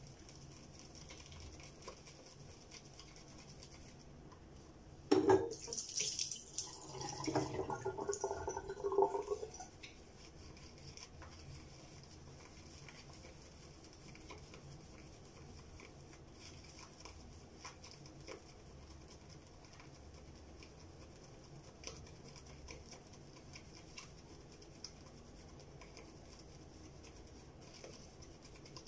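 Faint scratching and light ticking of shaving at a bathroom sink, broken about five seconds in by around four seconds of louder water splashing and running.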